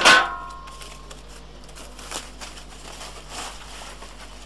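A metal air-fryer cooking basket is set down with a loud clank that rings briefly. A few faint knocks and rustles of cardboard packaging being handled follow.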